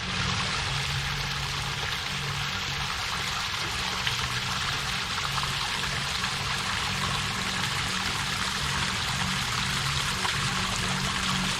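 Waterfall: water falling and splashing in a steady, even rush, with low steady tones underneath.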